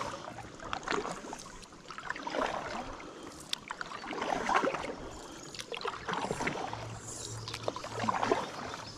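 Kayak paddle strokes in slow river water: the blades dip, pull and drip, one swishing splash about every one and a half to two seconds.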